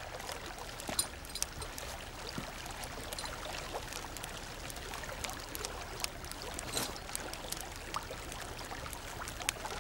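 Faint steady background hiss with scattered soft clicks and ticks.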